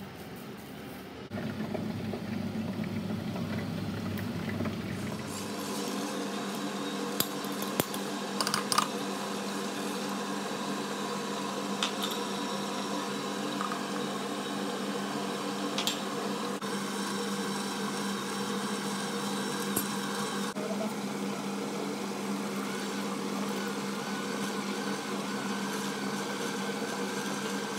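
The small electric motor of a motorised pan stirrer humming steadily as its paddle turns through bechamel sauce, starting about five seconds in, with a few sharp clinks of utensils against the saucepan.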